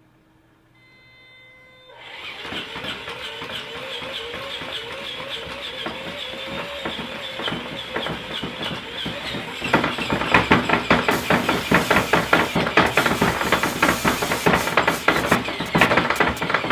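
A machine starting up about two seconds in with a pulsing, warbling whine, then from about ten seconds in a loud, very fast clattering rattle: the comic sound of the app's Burp Baby function running.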